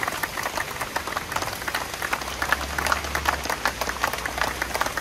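Crowd clapping steadily, with the low hum of a slowly passing car engine for a second or so in the middle.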